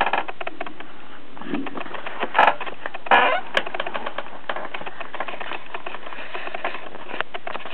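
A soft-cover paperback book being handled, with dense small clicks and paper crackle throughout and a couple of brief louder rustles about two and three seconds in.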